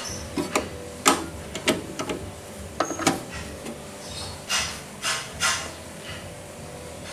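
Irregular sharp clicks and knocks with a few short scrapes, small metal parts being handled, over a faint steady hum.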